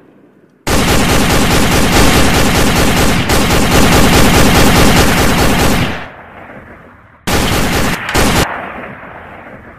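Machine-gun fire sound effect: one long rapid burst of about five seconds that trails off in an echo, then a second, shorter burst a little over a second later with a brief break in it, which also dies away.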